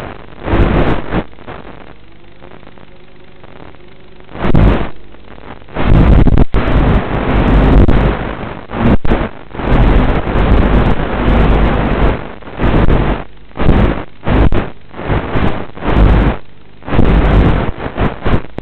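Audio from a flying Walkera drone's FPV camera feed: loud, irregular surges of rushing noise, some brief and some lasting a second or two, over a faint steady hum.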